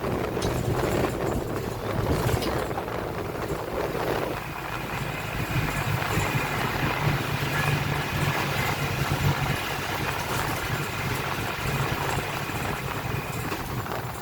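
Cabin noise of a Marcopolo Sênior Midi bus on an Agrale MA 15.0 chassis under way: the engine runs steadily, and from about four seconds in a steady high whine runs over it, the differential that the owner says is very loud.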